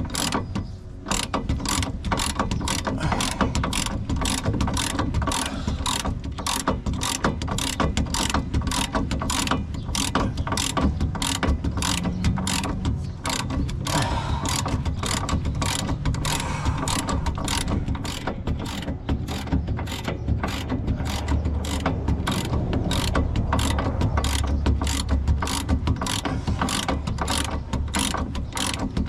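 Hand ratchet wrench clicking in a steady, repeated rhythm as a bolt is run in on a Mini's rear strut assembly.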